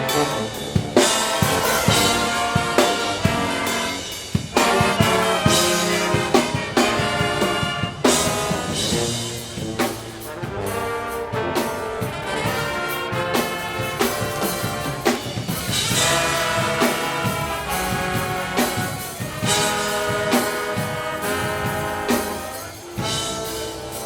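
HBCU marching band playing: the brass section (trumpets, trombones) sounds full chords over the drumline's steady drum hits.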